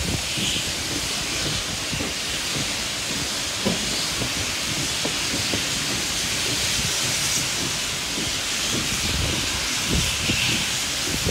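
Steady hiss of escaping steam from steam locomotive 5917, heard from a carriage of the moving train, with scattered low knocks underneath.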